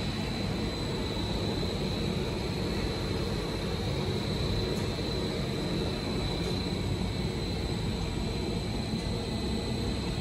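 Factory machinery running steadily: a dense mechanical din with a thin, steady high-pitched whine over it.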